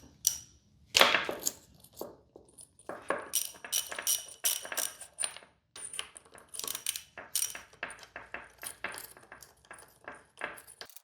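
Irregular metallic clicks and clinks of a ratchet and a ground-down 11/16 deep socket working a spark plug loose from the outboard's cylinder head, with a sharper clink about a second in.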